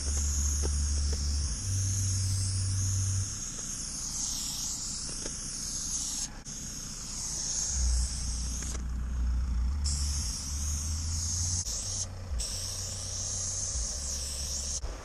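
Aerosol spray-paint can hissing in long strokes as lines are painted, stopping briefly a few times, with a low rumble on the microphone underneath.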